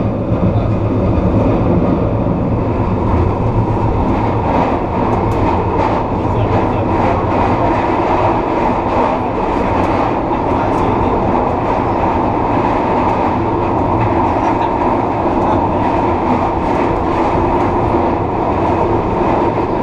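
SEPTA Kawasaki K-Car light rail vehicle running at steady speed through a subway tunnel: a continuous rumble of wheels on rail with a steady motor hum and scattered light clicks.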